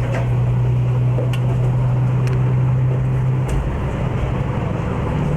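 Train running with a steady low hum whose pitch shifts about three and a half seconds in, with a few faint clicks.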